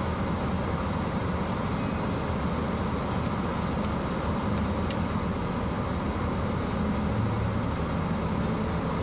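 Steady noise inside a car cabin: the engine idling and the heater fan blowing, with a low rumble under an even rush of air.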